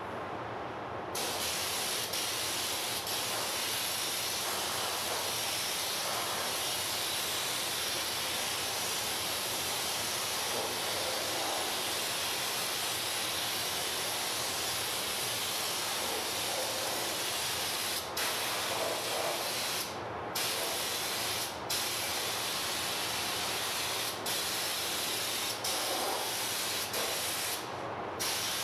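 Compressed-air spray gun, a cup-fed truck-bed-coating gun, spraying a thick sound-deadening coating in a steady hiss that starts about a second in. The trigger is let off briefly several times near the end, cutting the hiss for moments.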